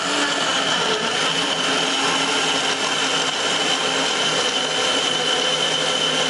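Personal bullet-style blender running steadily, its motor blending a smoothie of frozen fruit, vegetables and spinach. It is a loud, even whir with a high whine over it.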